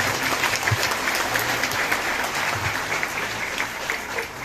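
Audience applauding: many hands clapping in a dense, steady patter that dies down near the end.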